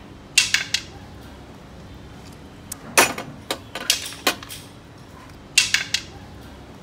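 Snail shells and tableware clicking and clattering against ceramic plates and a metal tray, in three short runs of sharp clicks: about half a second in, around three to four and a half seconds in, and near the end.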